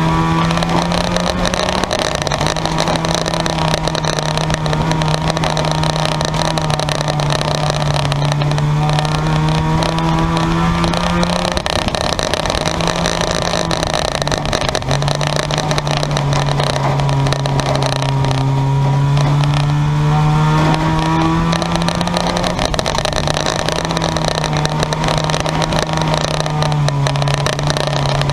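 Engines of several junkyard race cars running laps, one loud drone throughout. Engine pitch keeps rising and falling as the cars accelerate and back off, with other engines climbing in pitch under it.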